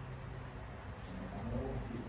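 Steady low hum of the room with faint voices murmuring in the second half.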